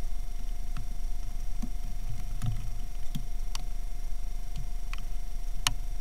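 Magpie's beak tapping on a stone feeding dish as it pecks at food: a few sharp, irregular taps, the loudest near the end, over a steady electronic hum.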